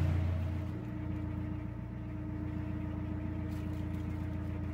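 Narrowboat's diesel engine running steadily at cruising speed, a constant low drone that is louder for about the first second, then settles a little quieter.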